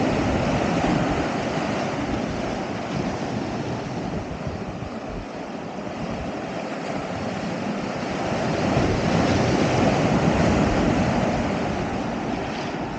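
Sea waves washing onto the shore, swelling louder about two-thirds of the way through, with wind buffeting the microphone.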